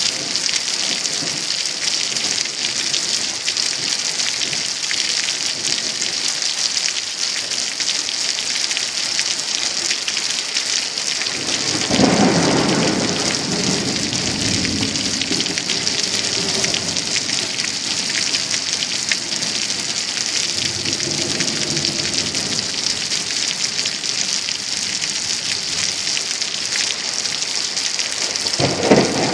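Heavy downpour in a summer thunderstorm: a steady hiss of rain, with a clap of thunder about twelve seconds in that rumbles on for several seconds, and another peal starting near the end.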